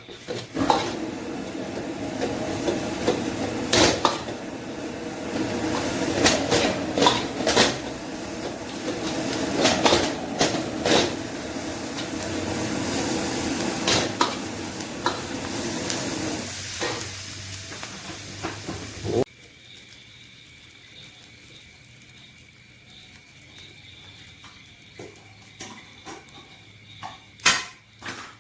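Metal utensil knocking and scraping against a cooking pot while food sizzles in it, with frequent sharp clinks. The sizzling and clatter stop abruptly about two-thirds of the way through, leaving a quieter background with a few scattered clicks and one loud clink near the end.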